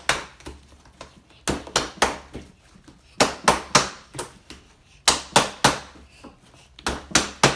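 Glitter slime being hit with a hand: quick runs of three sharp slaps, repeated about every two seconds.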